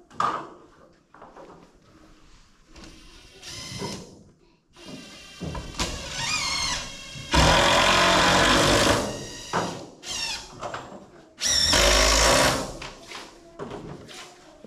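Cordless driver spinning up with a rising whir, then driving long screws into a wooden rim joist in two loud runs of a second or two each, the second about four seconds after the first, with quieter whirring between.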